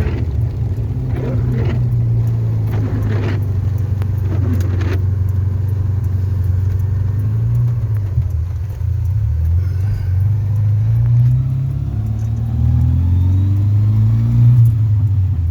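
A steady low rumble of a car and strong wind, with a faint engine-like note rising a few times in the second half.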